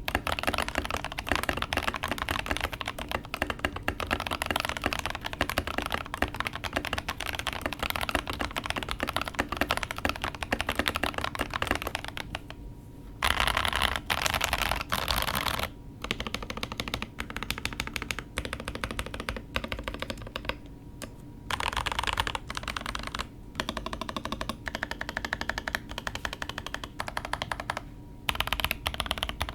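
Typing on a mechanical keyboard fitted with thick PBT Cherry-profile keycaps: a fast, steady run of key clacks, broken by a few short pauses.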